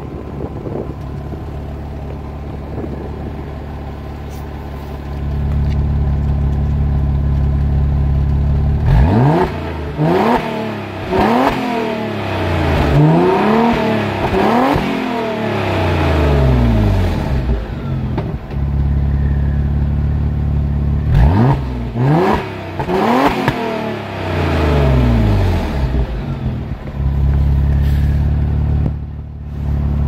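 Audi A6 2.7 biturbo's twin-turbo V6 through a straight-through exhaust, heard at the tailpipes. It idles, then is revved while standing in a run of repeated rising and falling blips from about nine seconds in. It settles back to idle briefly, then gets a second series of revs a little past twenty seconds before idling again.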